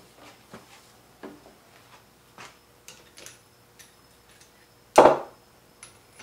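Hand tools being handled in a workshop: scattered light clicks and clinks, with one sharp knock about five seconds in.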